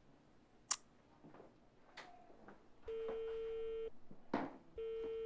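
Telephone ringback tone heard through a handset earpiece while a call waits to be answered: a steady beep about a second long, repeating after about a second's gap, starting about three seconds in. A sharp click comes near the start, and a brief rustle falls between the beeps.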